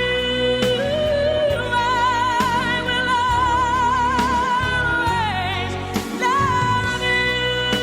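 Karaoke-style pop song playing through a phone live-streaming sound card: a backing track with a steady beat and a held lead melody with wide vibrato.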